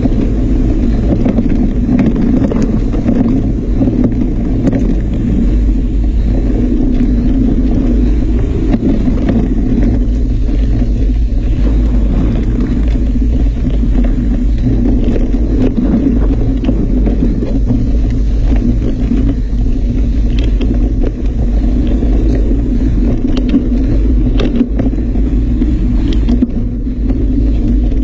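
Loud, steady rumble of wind and jostling on a moving camera, with many small clicks and rattles scattered throughout.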